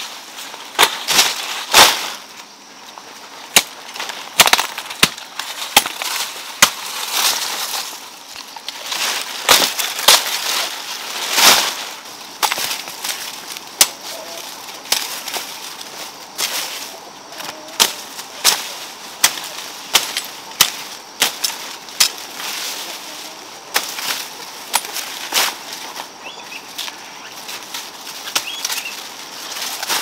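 A hoe chopping into stony soil and through weeds and dry sunflower stalks: irregular sharp chops about once a second, with rustling of the cut plants between strokes.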